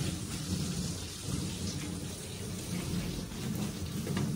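A low, uneven rumbling noise with a faint hiss above it.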